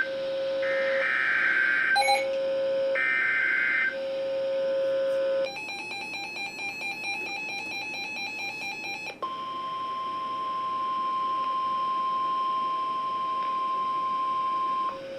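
NOAA Weather Radio alert signalling: three short screeching SAME data bursts about a second apart with a steady lower tone between them, then a few seconds of dense buzzing digital noise. About nine seconds in comes the long steady single-pitch warning alarm tone (the 1050 Hz tone), lasting about six seconds, which announces a new warning.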